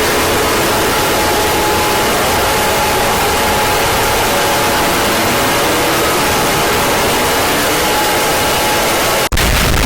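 Loud, harsh static-like noise from a made-up emergency alert alarm, with faint steady tones and slow sliding pitches under it. About nine seconds in it breaks off for an instant and switches to a deeper rumbling noise.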